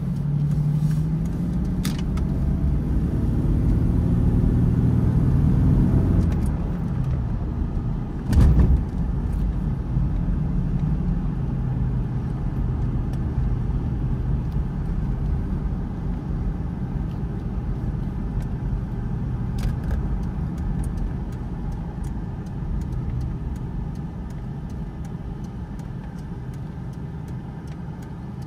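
A 1992 Jaguar XJS heard from inside the cabin: the engine pulls away with its pitch rising for about six seconds, then the car cruises with a steady engine and road hum. There is a single loud thump about eight seconds in.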